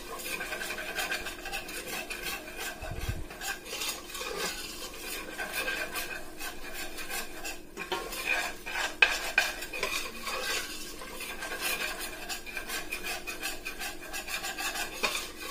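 A spoon stirring a flour-and-oil roux, scraping round the bottom of a stainless steel pot in a steady run of strokes, with a few sharper knocks against the pot. The roux is cooking and browning.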